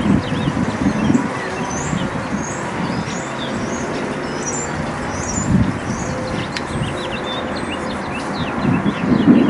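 Small backyard birds chirping in many short, high notes, over a steady low background rumble that swells near the start and again near the end.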